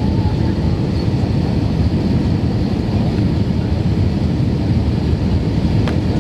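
Airbus A319-132 cabin noise on approach: a steady low rumble of its IAE V2500 engines and airflow over the fuselage, heard from a window seat. A light click near the end.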